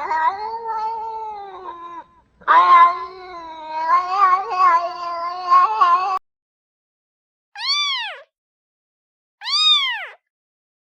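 Domestic cat meowing: a long low meow, then a longer drawn-out, wavering yowl that cuts off abruptly. After a pause come two short, higher-pitched meows, each rising and falling.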